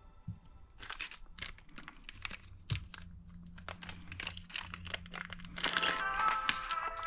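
Clear plastic packaging bag crinkling and crackling in a quick, irregular patter as a brake arm is worked out of it, over background music that grows louder near the end.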